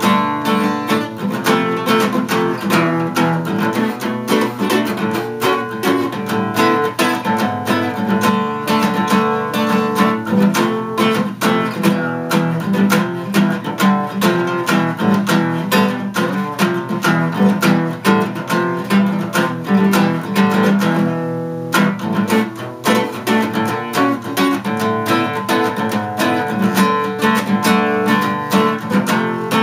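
Acoustic guitar strummed fast and steadily, with no vocals. About three-quarters of the way through, the strumming stops for a moment and a chord is left to ring before it picks up again.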